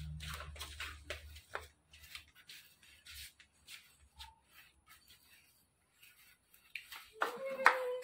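Scattered faint taps and clicks over a low hum that fades out after about a second and a half. Near the end, a person's voice calls out with a drawn-out tone as clapping begins.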